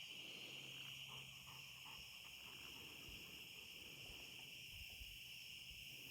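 Faint, steady outdoor insect chorus, a constant high-pitched trilling.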